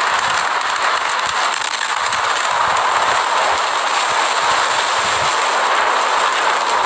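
Steady, loud rushing noise of the explosion's dust cloud and wind buffeting a phone microphone, with no distinct bang.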